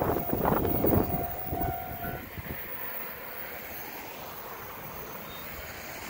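Tail of an electric train passing over a level crossing: wheel clatter on the rails for about the first second, fading away, while the crossing's warning bell rings steadily and cuts off about two seconds in. After that only a low, steady background hiss remains.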